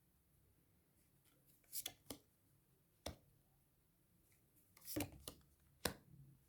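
Tarot cards being handled and laid down in a quiet room: a handful of short card flicks and taps, two around two seconds in, one at about three seconds, and a cluster of three near the end.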